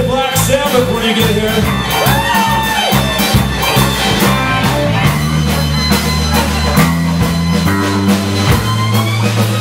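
Live rock band playing: electric guitar, bass guitar, drum kit and fiddle, with sliding high notes over the first few seconds and long held bass notes in the second half.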